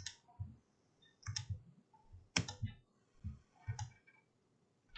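Computer mouse clicking repeatedly at an irregular pace, several of the clicks in quick pairs, while the trim-away tool is used to pick lines in CAD software.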